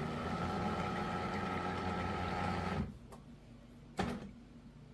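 Terra Kaffe TK-02 super-automatic espresso machine running with a steady mechanical buzz as it goes through its setup cycle. The buzz stops abruptly about three seconds in, and a single short knock follows about a second later.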